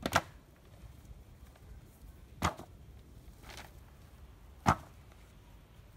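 Sharp wooden knocks, three loud ones about two seconds apart with a fainter one between the second and third: bamboo poles of a lashed frame knocking together as the rope binding is yanked tight.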